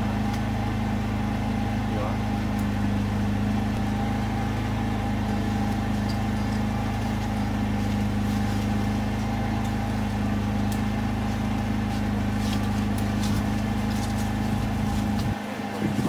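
An engine running steadily with a low hum, which cuts off abruptly near the end. A few light clicks and rustles come in just before it stops.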